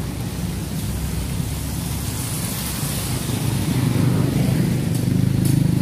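Street traffic on a rain-wet road: vehicle engines running with tyre hiss over them. About halfway through, a vehicle's engine grows louder as it passes close by.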